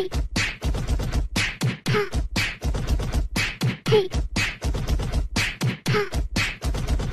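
Fast, beat-heavy percussive rhythm with deep bass, about four hits a second, and a short pitched blip about every two seconds.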